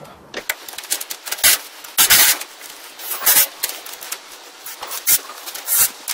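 Irregular metallic clicks and clatter from tools and a socket on a bolt under the car, in short uneven bursts, a few of them lasting about a quarter second.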